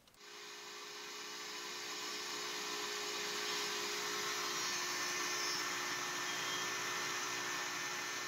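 DeWalt compact router on a Lowrider CNC machine cutting a plywood platform: a steady whine under a rushing noise, swelling a little over the first few seconds and then holding.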